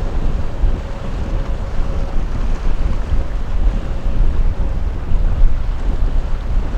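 Wind buffeting the microphone: a steady low rumble that rises and falls in loudness. A faint steady hum runs under it for the first few seconds.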